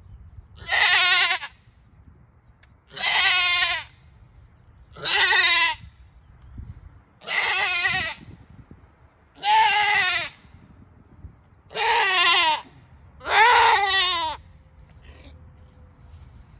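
A doe goat in labour bleating loudly as her kid is delivered: seven long, wavering calls about every two seconds, each falling in pitch at the end.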